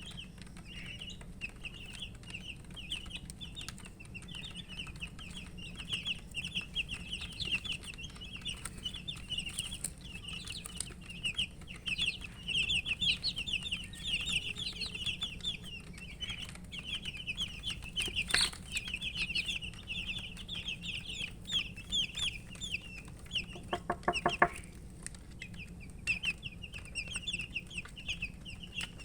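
A group of baby chicks chirping continuously, with many short, high peeps overlapping. A brief, lower-pitched call cuts in about two-thirds of the way through.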